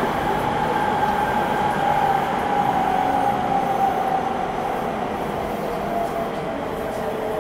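Running noise inside a Seibu 6000 series electric train, with the traction motors' whine falling slowly in pitch as the train loses speed.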